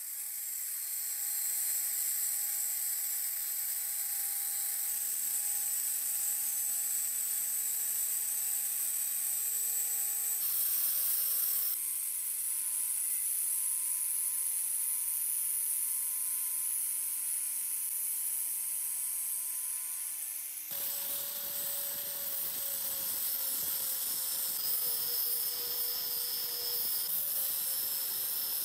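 Angle grinder spinning a sanding disc on a foam backing pad, sanding a pine block with a steady high whine. The motor's pitch jumps abruptly about ten, twelve and twenty-one seconds in.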